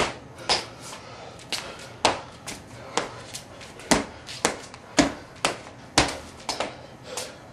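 Freestyle footbag play: sharp taps and slaps of a footbag against shoes and feet landing on a concrete floor, coming about twice a second in an uneven rhythm. The strongest strikes fall at about two, four, five and six seconds in.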